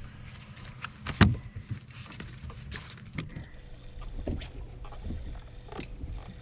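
Scattered clicks and knocks of handling on a fishing boat, the loudest a sharp knock about a second in, over a low steady hum.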